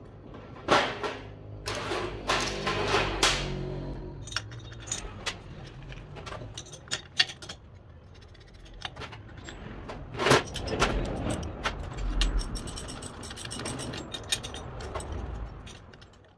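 Metal clinking and clattering from hand work with bolts, tools and steel parts, with a few louder knocks.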